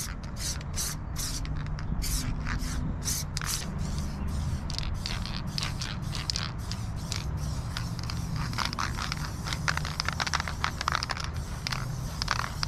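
Aerosol spray paint can hissing in many short bursts as paint is sprayed onto the board, a few bursts a second at first and then quicker and finer. A low steady rumble sits underneath.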